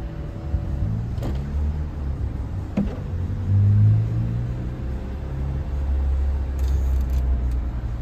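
Mercedes SLK 280's electric folding hardtop closing: a low, steady hum of its hydraulic drive, with two sharp clicks from the roof mechanism in the first three seconds.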